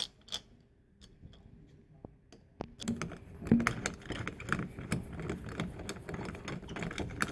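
A Phillips screwdriver driving a mounting screw into a doorknob's metal housing: a couple of clicks at the start, then from about three seconds in a steady run of small irregular clicks and scrapes as the screw is turned.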